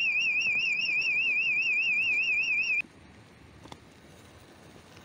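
Electronic alarm sounding a high warbling tone that wavers up and down about seven times a second, then cuts off suddenly about three seconds in.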